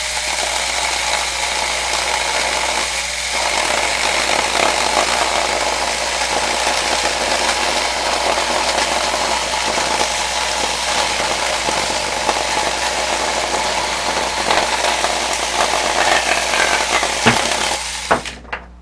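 Denqir 21V battery-powered mini chainsaw running and cutting through a 2x4 for about eighteen seconds, then stopping, with a couple of sharp knocks as it ends. The chain is running dry without bar oil.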